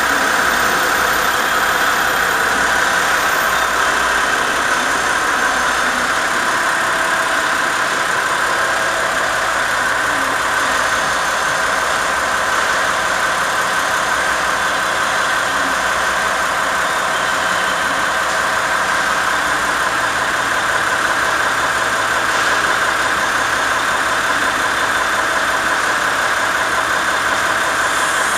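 Diesel railcar of the orange KiHa 40 series idling steadily while it stands at the platform.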